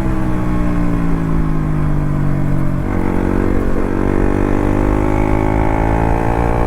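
KTM RC 200's single-cylinder engine running while riding. Its note sinks slowly for about three seconds, changes abruptly, then climbs steadily as the bike pulls.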